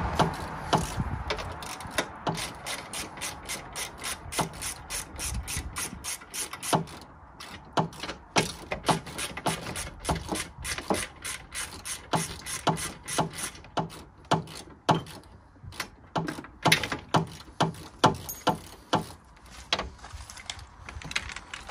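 Hand socket ratchet clicking in runs of several clicks a second, with short pauses between runs, as bolts are undone on a car's front bumper mounting bracket.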